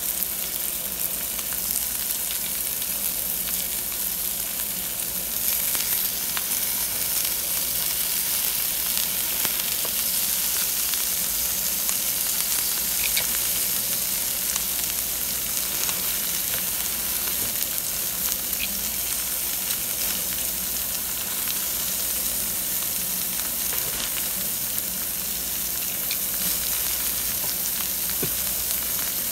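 Pork belly sizzling steadily on a charcoal-heated grill plate as its fat renders, with a few faint clicks.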